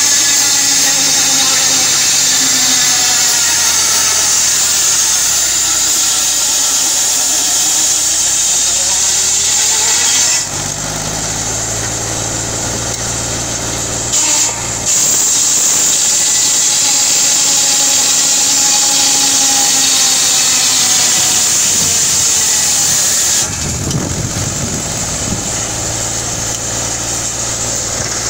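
Tractor-driven circular saw ripping a long plank lengthwise in two cuts of about ten seconds each, the blade giving a loud hiss in the wood while its pitch sags under load and recovers. Between the cuts and near the end, only the tractor engine runs, with the blade spinning free.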